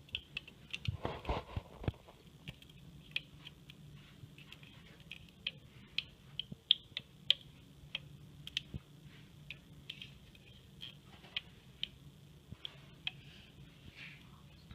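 Plastic loom and hook being handled while rubber bands are worked on it: light, irregular clicks and taps, a few a second, over faint room hum.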